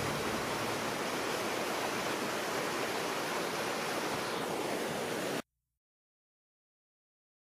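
Fast, turbulent floodwater of a swollen, mud-laden river rushing: a steady, dense noise of churning water. It cuts off abruptly about five and a half seconds in, leaving silence.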